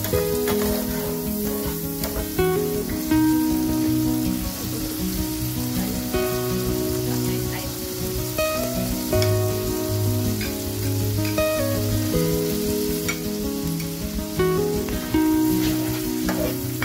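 Shrimp and minced garlic sizzling in hot oil in a frying pan while being stirred, with a few utensil clicks. Background music with held notes plays underneath.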